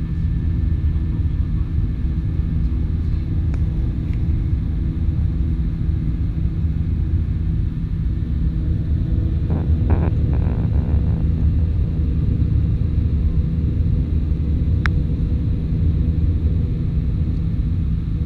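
Airliner cabin noise in flight: the steady low drone of the wing-mounted turbofan engine and rushing airflow, heard inside the cabin.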